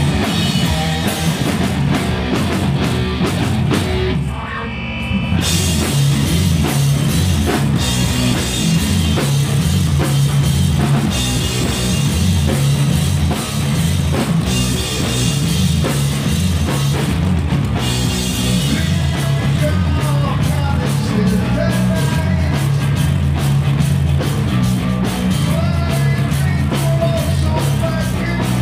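Live stoner rock band playing: heavy electric guitar, bass guitar and drum kit. The band drops back briefly about four seconds in, then comes back in full.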